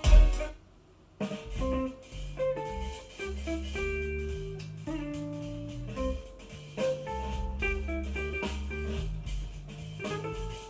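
Music playing through two paired IKEA Eneby 30 speakers. One track ends with a loud hit just at the start, followed by about half a second of near quiet. A new piece with a bass line and plucked melody notes then begins.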